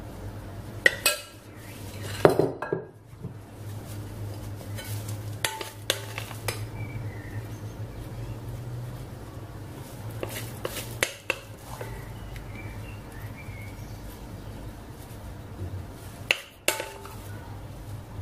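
Metal spoon clinking and scraping against a glass mixing bowl as thick cake batter is scooped out. A few sharp clinks are scattered through it, the loudest about two seconds in and near the end, over a low steady hum.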